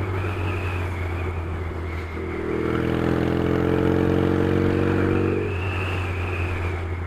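Yamaha XS650 parallel-twin motorcycle engine running under way, with a steady low rumble. For about three seconds in the middle its note comes up and climbs slightly as it pulls harder, then eases off again.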